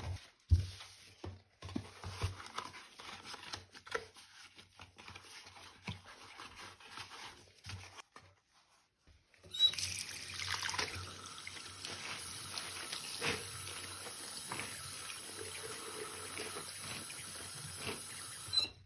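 Bathroom sink faucet running into the basin while gloved hands rinse and scrub out wet powder paste; the water starts abruptly about halfway through and stops suddenly near the end. Before it, scattered soft rubbing and scraping sounds.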